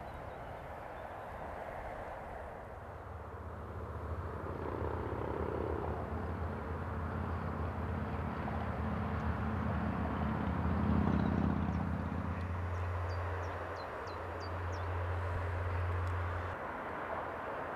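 Distant road traffic on a bridge: a steady hiss with a low engine hum that swells to its loudest about eleven seconds in and stops shortly before the end. A few faint high chirps come near the end.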